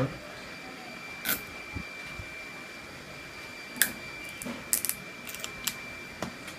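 Clicks and light knocks of an HP ProBook 450 G0 laptop's LCD panel and plastic display lid being handled as the panel is lifted out of the lid and laid face-down. A sharp knock comes right at the start, then about half a dozen lighter clicks and taps, over a faint steady high tone.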